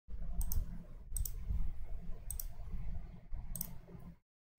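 Computer mouse clicking about four times, roughly once a second, over a low background rumble.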